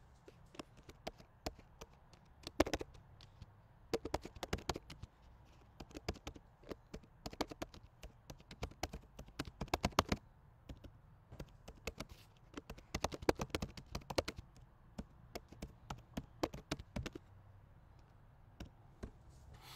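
Typing on a computer keyboard: uneven bursts of quick key clicks that stop a few seconds before the end.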